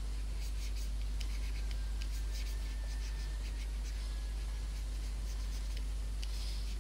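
Stylus scratching across a graphics tablet in many short, quick strokes as lettering is inked in, over a steady low electrical hum.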